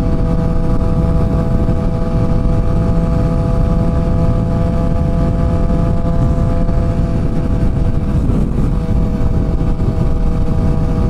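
Motorcycle engine running at a steady cruise, its note holding constant with no revving or gear changes, under the low rush of riding wind.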